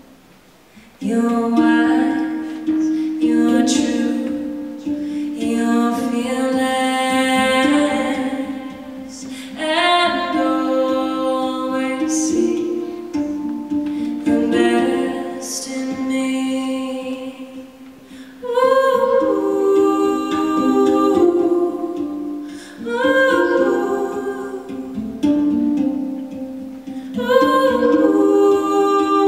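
A woman singing long held notes that glide from one pitch to the next, over a steady low sustained drone.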